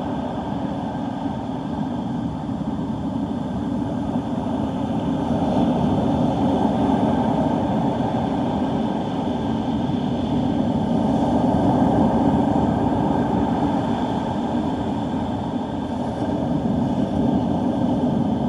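Storm wind rumbling on the microphone over heavy surf, a steady low roar that swells and eases every few seconds.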